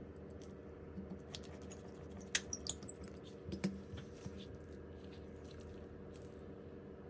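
Sharp little clicks and taps of small tools and parts being handled on a phone, several in quick succession a little past the middle, over a steady low hum.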